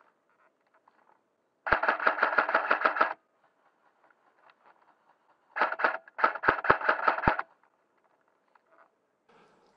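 Airsoft electric gun firing on full auto: three bursts of rapid shots, the first about a second and a half long, then a short burst and a longer one close together.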